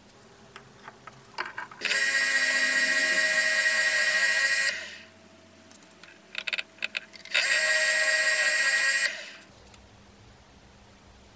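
A small electric power tool runs twice in short bursts, the first for about three seconds and the second for about two. Each run is a steady, high, buzzing whine that starts abruptly and dies away over about half a second when switched off. A few light clicks and knocks from handling the work come before and between the runs.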